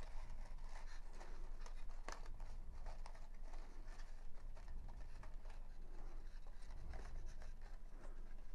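Faint rustling and small scattered clicks of ribbon being knotted around a paper favor box, fingers handling the card stock.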